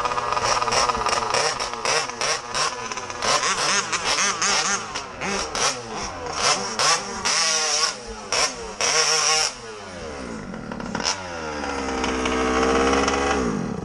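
Small two-stroke mini moto engine (MCD XR5 with an ALX 48cc) revving hard and repeatedly, its pitch swinging up and down with many sharp cracks through it, the engine the riders say is misfiring. Near the end the revs fall away in one long drop before the sound cuts off suddenly.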